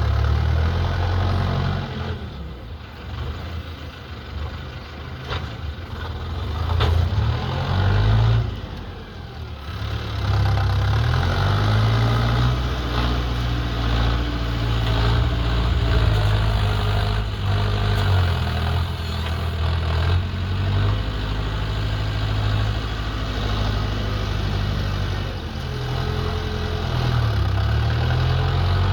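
Bull backhoe loader's diesel engine running and revving, its pitch rising and falling with the work. It is quieter for several seconds near the start, then runs louder and fairly steadily.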